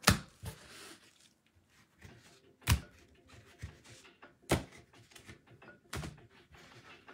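Hard plastic trading-card cases clicking against plastic display stands as they are set down and swapped: four sharp clicks a second or two apart, with faint handling noise between them.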